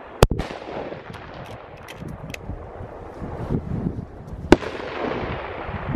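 Two rifle shots from a Sauer 200 STR bolt-action rifle, about four seconds apart, each followed by a rolling echo, with faint clicks in between.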